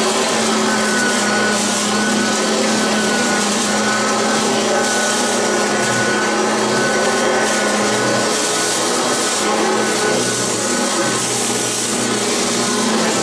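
Hoover ONEPWR cordless bagged upright vacuum running on carpet in its carpet setting, with a steady hum and high whine over the rush of air and the brushroll on the pile.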